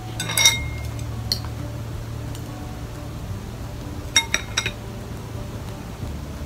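Eating utensils clinking against dishes: a couple of clinks in the first half second, one more about a second in, and a quick run of three or four clinks around four seconds in.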